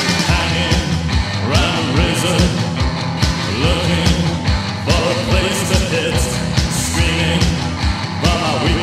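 Rock song played from a 1986 12-inch vinyl single: a voice singing over a steady drum beat with a full band.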